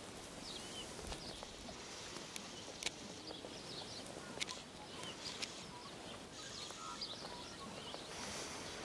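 Quiet outdoor ambience with birds chirping in the distance, short chirps scattered throughout, and a few faint clicks.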